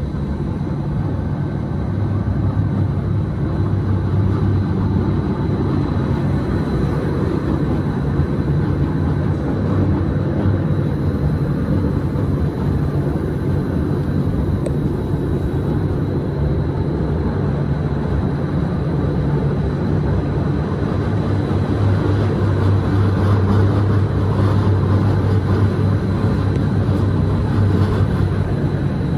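A train running steadily on its track: an even rumble with a low hum that grows a little stronger in the second half, and a faint steady high whine.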